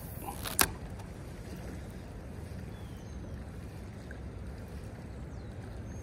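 Steady low rumble of a swollen creek flowing past the bank, with a single sharp click about half a second in.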